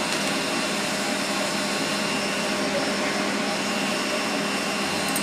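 Steady whirring machine noise, like a running fan or blower, with a constant hum under it.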